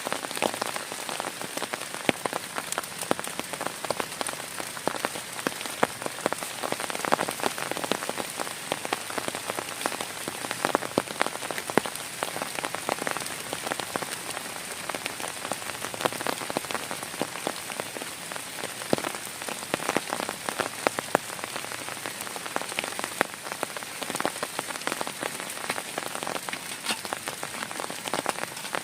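Heavy rain falling steadily, with many close individual drops striking a surface sharply.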